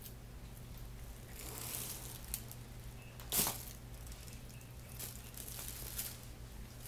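Hands handling iron and chrome weight plates beside a plastic chalk bag: rustling and small handling clicks, with one brief louder noise about three and a half seconds in.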